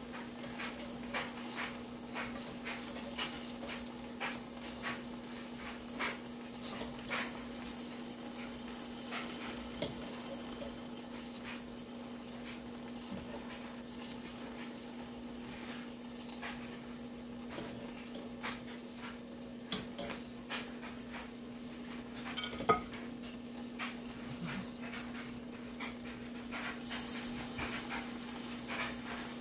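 Kielbasa sausages sizzling in a covered pan under a glass lid, with irregular crackles and pops of fat, one sharper pop near the end, over a steady low hum.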